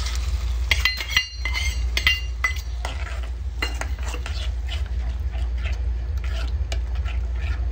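Metal spoon stirring and clinking against a metal cooking pot: a few sharp ringing clinks about a second in, then repeated short scraping strokes.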